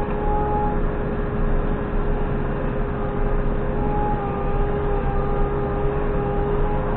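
JCB 3CX backhoe loader's diesel engine running at steady revs, with a steady whine over the rumble.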